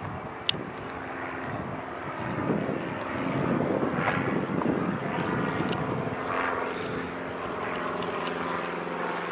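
A steady engine drone with a low hum that becomes steadier in the second half, and one sharp tick about half a second in.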